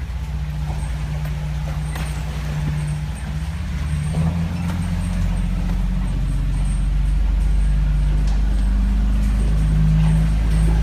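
A 4WD's engine running at low speed, heard from inside the cabin as a steady low hum that grows louder from about halfway through. A couple of short knocks come through early on as it rolls over the rough dirt track.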